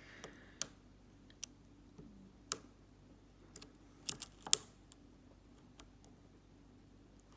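Sharp, scattered clicks and taps of a lock pick and tension wrench working inside a brass Corbin padlock, about eight at irregular intervals.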